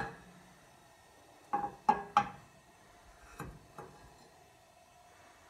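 Light knocks of cookware being handled on a stovetop: a sharp knock, then three quick knocks with a brief metallic ring about a second and a half in, and two softer ones a little later.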